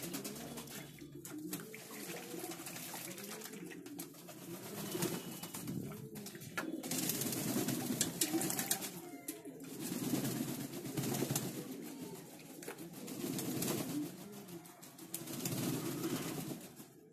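Racing pigeons cooing over and over while they bathe in a shallow basin, with several bouts of splashing water and wet wings flapping in the water.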